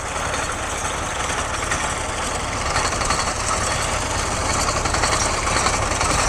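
Tractor diesel engine running steadily under an even load, its firing pulses making a continuous low beat.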